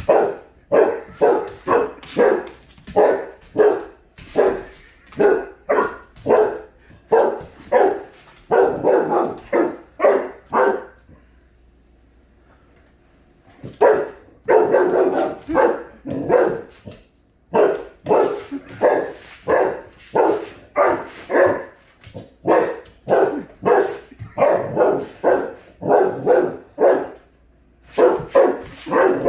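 English Labrador barking over and over, in quick repeated barks, at a robot mop as at an intruder. The barking stops for about three seconds near the middle, then starts again.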